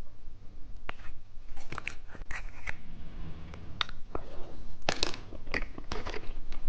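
Plastic snack wrapper being cut and torn open: a run of short, sharp snips and crinkles, coming faster in the second half.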